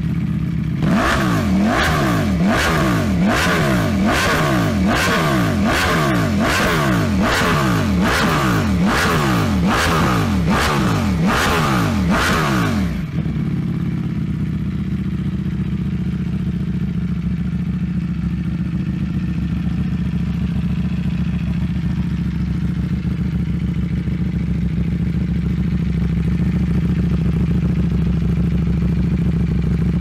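Ducati Panigale V4's V4 engine through an aftermarket twin-outlet underbody exhaust, stationary: about a dozen quick throttle blips, roughly one a second, each rev rising and dropping back, then from about halfway it settles into a steady idle.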